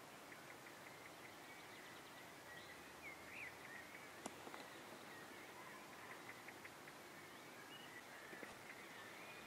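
Faint outdoor ambience of scattered bird chirps and calls over a steady hiss, with one soft click about four seconds in.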